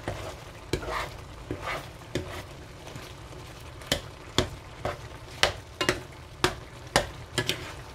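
A spatula stirring tteokbokki in a frying pan, scraping and clicking sharply against the pan about a dozen times, over the steady low bubble and sizzle of the simmering sauce.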